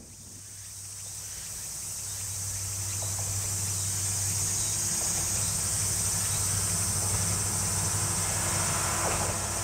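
Insects trilling steadily in a rice field over the low, steady drone of an approaching KiHa 52 diesel railcar's engines, which builds over the first couple of seconds and then holds.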